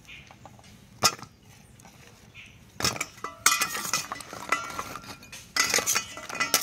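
Steel spatula clinking and scraping against a stainless-steel bowl as fried goja pastries are added to sugar syrup and turned. A single knock comes about a second in, then from about three seconds in a run of clinks, with the bowl ringing.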